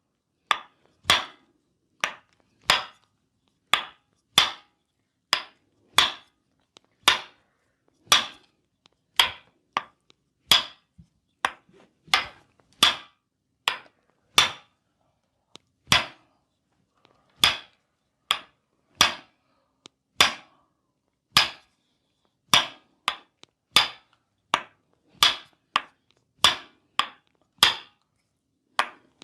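Percussive massage strikes on the body, a long run of sharp slaps or taps at roughly one and a half a second, with a few short pauses.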